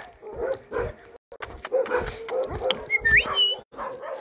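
Dogs whining softly over footsteps and scuffs on concrete, with one short, high, rising whine about three seconds in.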